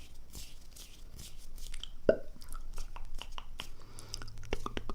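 Close-miked breath and mouth sounds: soft airy breaths for the first second or so, then a run of quick wet clicks and smacks, one louder about two seconds in.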